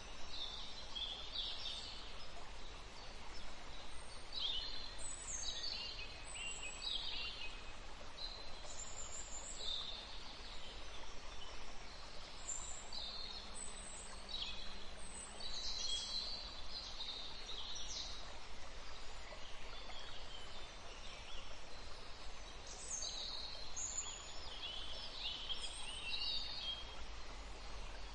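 Nature ambience: birds chirping in short, scattered high calls over a steady background hiss.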